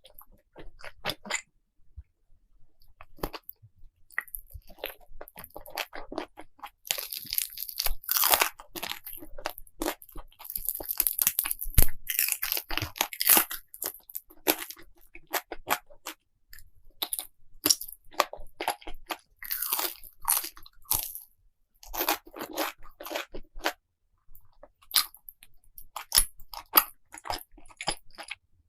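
Close-miked eating: a person chewing and crunching food, with many short sharp mouth clicks and several louder bouts of crunching.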